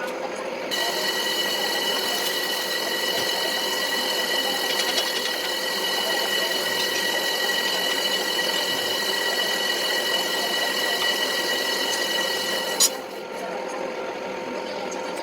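A workshop power tool's electric motor running steadily. About a second in, a higher whine joins it and holds, then stops with a sharp click near the end.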